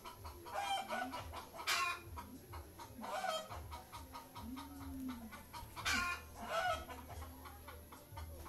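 Bird calls: about five short calls, the loudest a little under two seconds in and again around six seconds.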